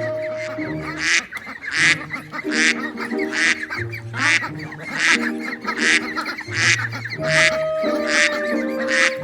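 Waterfowl calling over and over, short loud calls about one every 0.8 seconds, over background music with held notes and a bass line.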